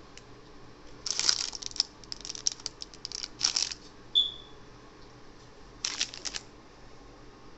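Plastic packaging crinkling and rattling as ring light parts are handled, in two bursts of rapid crackles, with a short high-pitched clink about four seconds in.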